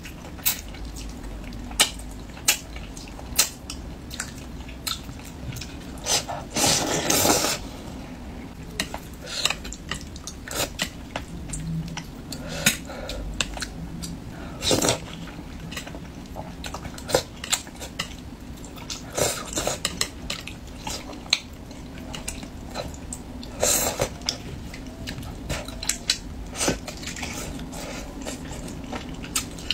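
Close-miked eating of spicy braised fish: chopsticks clicking against a porcelain bowl and serving dish, mixed with chewing and sucking of fish off the bones, in a few longer stretches.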